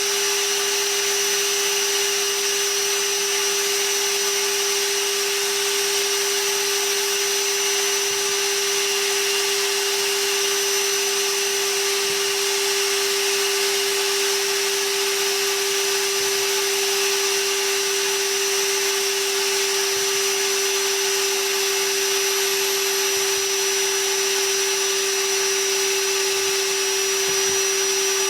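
Ridgid Cordless NXT wet/dry vacuum's motor running steadily at a constant pitch, with a steady whine over the rush of air, late in a battery run-down test. It is pulling against a dirty filter and a half-filled bag, and its suction is fading.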